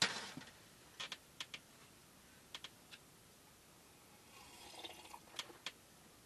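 Scattered light clicks and knocks of tableware being handled, then a short noisy sip from a metal mug about four seconds in, followed by a few more clicks.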